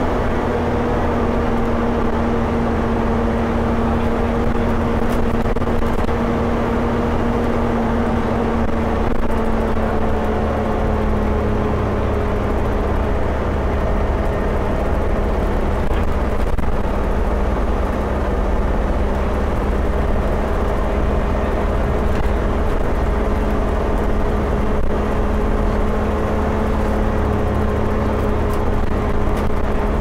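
Volvo B7TL double-decker bus running at a steady speed, heard from inside the passenger saloon: a constant low drone of engine and road with a steady whine, the bus's 'hoover', that sinks slowly in pitch.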